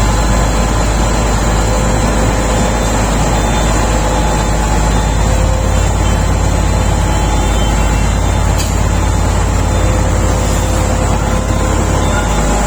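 Shantui SD32 crawler bulldozer's diesel engine running steadily, with a heavy low rumble.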